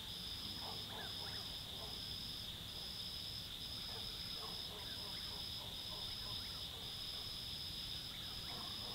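Night insect chorus of crickets: a steady high trill with a second, higher trill pulsing in phrases of about a second. Faint short sounds come and go in the distance beneath it.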